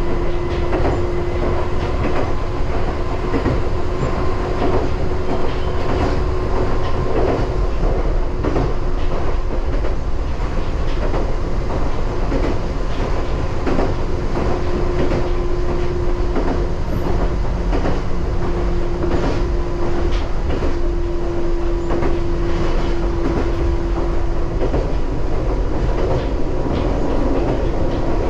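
Meitetsu electric train running along the track, heard from the driver's cab: a steady rumble with the clickety-clack of wheels over the rail joints. Under it runs a steady hum that drops out and comes back a few times.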